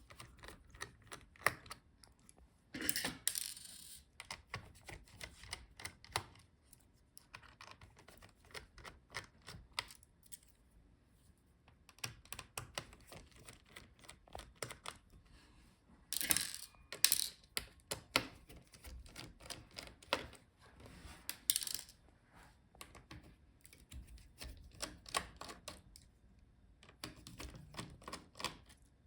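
Small clicks and ticks of a screwdriver working the screws out of a laptop's motherboard, with a few louder metallic clinks about three seconds in, around sixteen seconds and again near twenty-two seconds.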